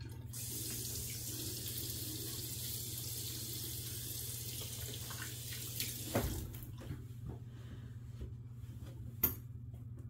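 Bathroom sink tap running, water splashing into the basin, shut off about six seconds in. Then a few light knocks and one sharp click near the end, over a steady low hum.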